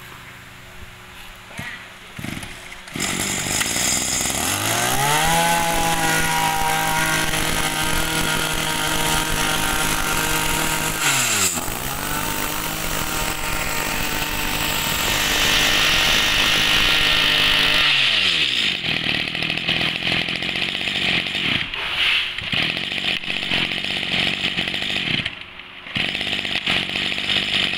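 Makita 20cc two-stroke brush cutter engine starting about three seconds in and revving up to a high, steady speed. The revs drop briefly and climb again, then the engine falls back to a lower, unsteady idle for the last ten seconds.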